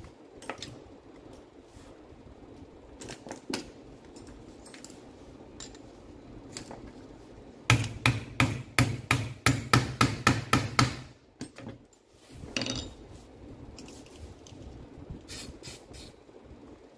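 Hammer striking the front of a power drill's tool holder in a quick run of about a dozen metal blows, about four a second, starting about halfway through, to knock loose a broken drill bit stuck in it. Lighter knocks and clicks of handling the tool come before and after.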